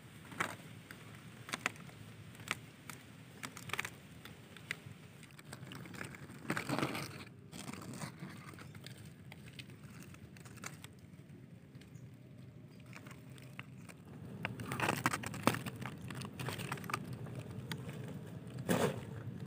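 Plastic bag crinkling and rustling as it is handled, in irregular crackles and clicks, busier about seven seconds in and again from about fifteen seconds.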